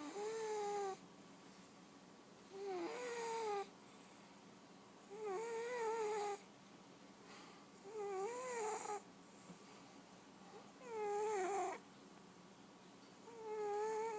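Fat domestic cat snoring with a high, wavering whistle on each breath, about every two and a half seconds, each snore about a second long.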